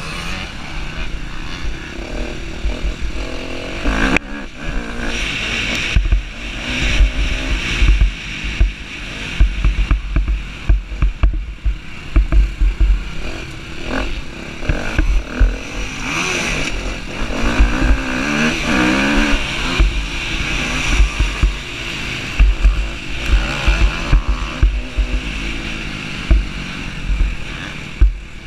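Husqvarna TC250R motocross bike's engine revving up and down as it is ridden hard around a dirt track, with heavy wind buffeting on the helmet-mounted microphone.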